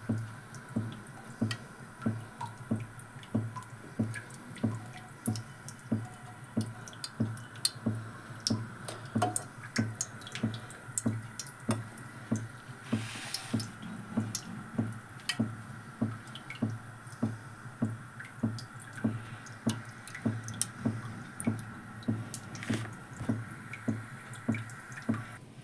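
Water dripping steadily, about two drops a second, over a faint steady high hum.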